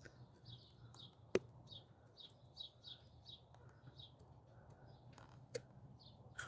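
Small birds chirping faintly, short quick chirps two or three a second, with a sharp click about a second and a half in and another near the end.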